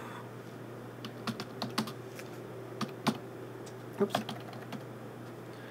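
Scattered keystrokes on a computer keyboard as a search word is typed in, about a dozen irregular clicks, some in quick pairs.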